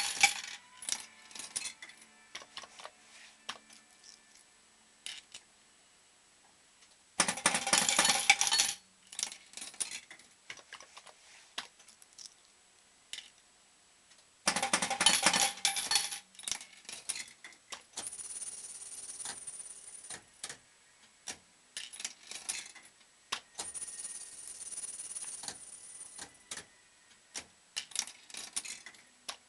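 Bell-Fruit Fore & Aft fruit machine being played: three bursts of rapid mechanical clattering about seven seconds apart, with scattered clicks between them. Later come two stretches of steadier mechanical running with a faint high whine.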